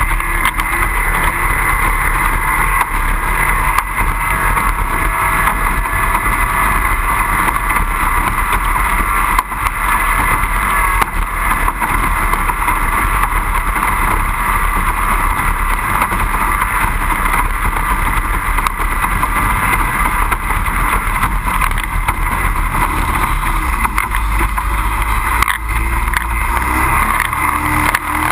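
25 hp racing outboard motor on a power boat running steadily under way.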